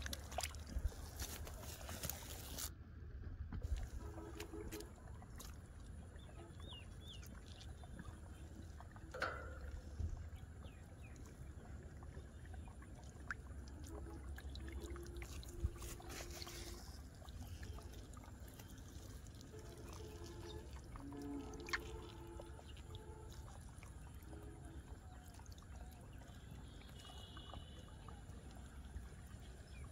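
Hands groping and splashing in a shallow, muddy rain-water channel while water trickles, with a few sharp splashes as a catfish is grabbed and struggles in the water.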